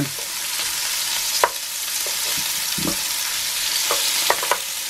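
Diced meat sizzling as it browns in hot oil in a frying pan, with a wooden spatula knocking and scraping against the pan a few times.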